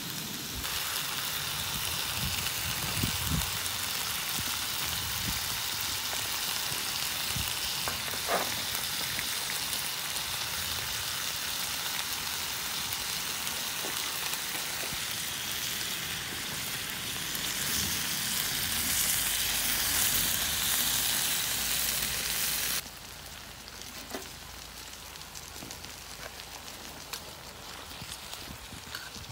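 Saucy stir-fried octopus sizzling steadily on a hot steel griddle over a wood-fired stove. It is louder in the middle, then drops abruptly to a quieter sizzle about three-quarters of the way through.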